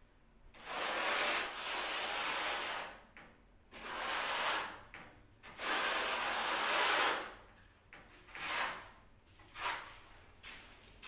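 Steel hand trowel scraping tile adhesive across a wall in repeated strokes: four long sweeps of one to two seconds, then a few shorter ones near the end.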